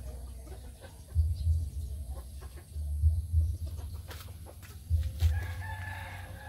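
Chickens clucking, then one long, drawn-out call from about five seconds in. Low thumps recur every second or two.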